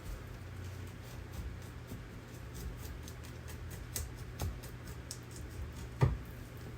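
Small clicks and light scraping from knife work stripping fat off an otter's tail, over a steady low hum. One sharp thump about six seconds in.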